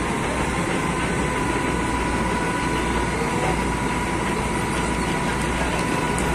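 Heavy diesel truck engine running steadily at low revs, a constant low rumble with a faint steady whine on top, as it powers a truck-mounted crane lifting a sunken box truck.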